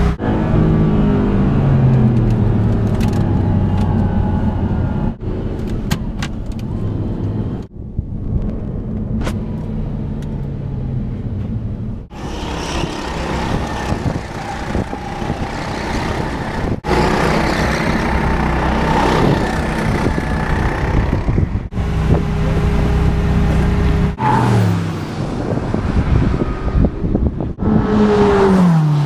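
Sports-car and go-kart engines in a run of short clips that cut abruptly from one to the next: a Ferrari's engine running with its pitch falling at the start, kart engines on a track in the middle, and near the end a car speeding past with a steep drop in pitch.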